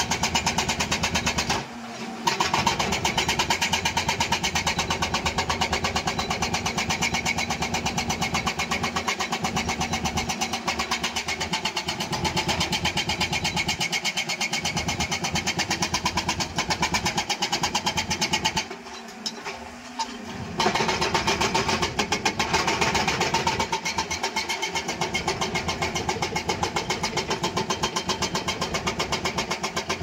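Hydraulic breaker on a Volvo EC240B LC excavator hammering broken rubble in rapid, steady blows, with the excavator's diesel engine running beneath. The hammering stops briefly about two seconds in, and again for about two seconds just past the middle.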